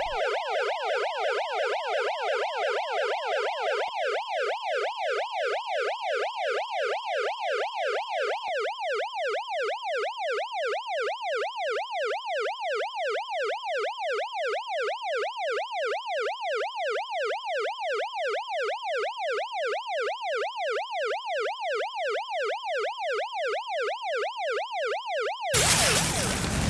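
Police siren sound effect in fast yelp mode: a pitched wail rising and falling about three times a second at a steady level. It cuts off suddenly near the end, replaced by a loud noisy burst.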